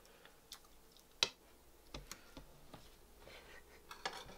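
Faint, scattered clicks of a knife and fork against a ceramic plate as a chicken cutlet is cut, the loudest a little over a second in.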